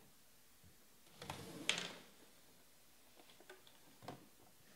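A stack of baseball trading cards handled and thumbed through: a brief rustle of cards sliding over one another about a second in, ending in a sharp click, then a few faint ticks of card edges.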